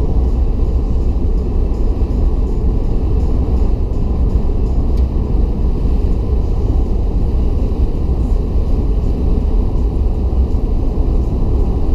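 Steady low rumble of a car driving on a paved highway, heard from inside the cabin: tyre, road and engine noise with no distinct events.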